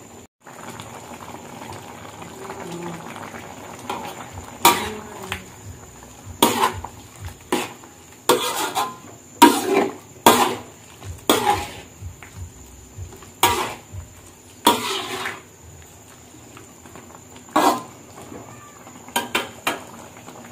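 Metal spatula clacking and scraping against a metal pan as a shrimp and long-bean coconut curry is stirred. The strokes come irregularly, about one a second, from about four seconds in, with the curry bubbling underneath.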